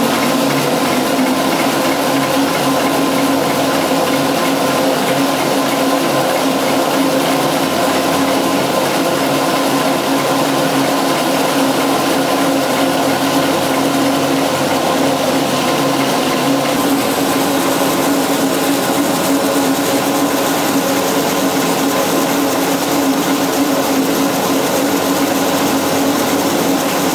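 AFS hot needle perforator running with plastic film feeding through its rollers: a loud, steady machine whirr with a constant hum.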